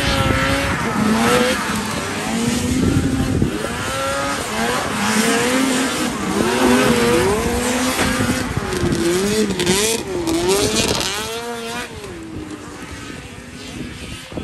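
Several vintage two-stroke snowmobile engines racing, overlapping as they rev up and down with the throttle, then dropping away near the end.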